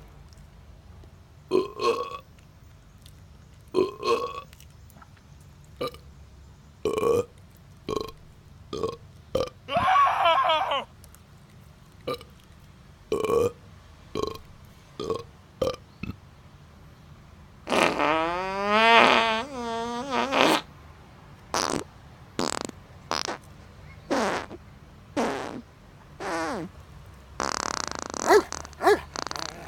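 A long series of burps, most of them short, with drawn-out longer burps about ten seconds in and again from about eighteen to twenty-one seconds in.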